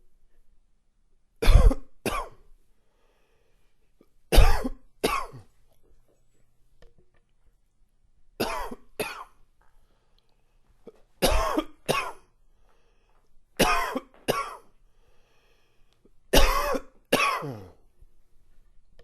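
A man's chesty, slightly congested cough: six double coughs, each pair two sharp coughs about half a second apart, coming every few seconds.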